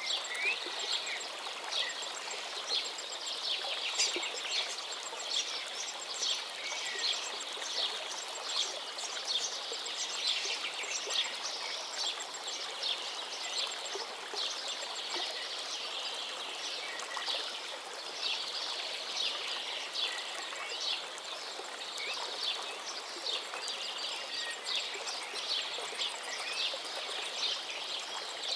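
Many small birds chirping and twittering constantly in a dense, overlapping chorus of quick high notes, over a steady hiss.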